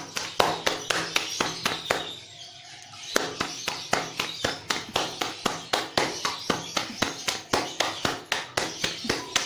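Hands slapping and patting a round of paratha dough to flatten it, in quick, sharp slaps about four a second, with a short break about two seconds in.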